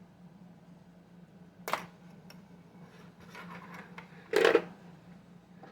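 Handling sounds at a sewing machine before stitching: a sharp click about a second and a half in, some light rustling, then a short louder clunk, over a faint steady hum.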